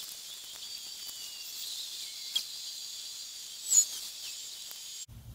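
Outdoor summer ambience: insects trill steadily and high, a short bird chirp comes near the end, and faint pops and crackles come from the charcoal chimney starter burning.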